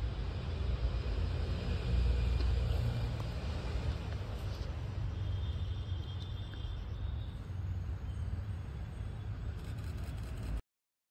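Steady low outdoor rumble, swelling about two seconds in, that cuts off abruptly shortly before the end.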